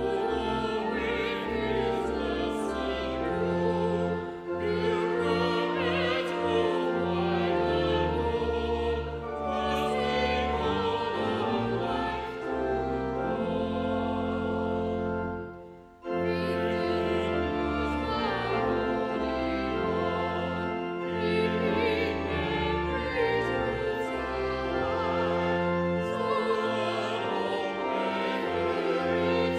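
Sacred music in a classical style: singing over a sustained instrumental accompaniment. The music breaks off briefly just past halfway, then resumes.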